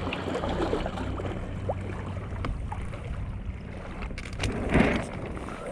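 Strong wind buffeting the microphone over water splashing, while a Hobie Wave catamaran sails in high wind, with a louder gust or splash about five seconds in.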